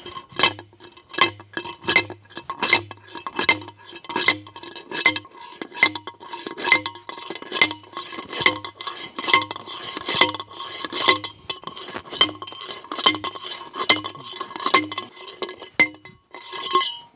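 Homemade slide hammer, a sledgehammer head welded to a length of 1.5-inch steel pipe, driving a steel fence T-post into the ground. It makes about twenty ringing metallic clangs, each with a low thud, evenly paced at a little over one a second. The strikes stop near the end, and a short rattle follows.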